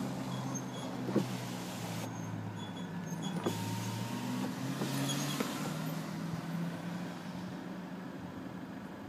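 A vehicle engine running steadily at low speed, heard from inside a slowly moving vehicle, with a few faint clicks and knocks.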